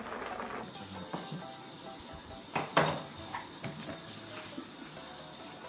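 Water running steadily in a kitchen, a rushing hiss, with a few light clinks of dishes.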